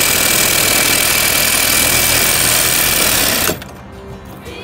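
DeWalt cordless reciprocating saw cutting through a padlock on a trailer door latch, a loud steady buzz of the blade on metal that cuts off suddenly about three and a half seconds in.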